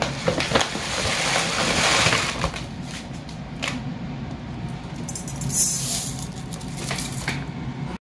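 Foil basmati rice bag crinkling as it is handled and opened, then dry rice grains rattling as a cup scoops them from the bag and pours them out. The sound cuts off suddenly about eight seconds in.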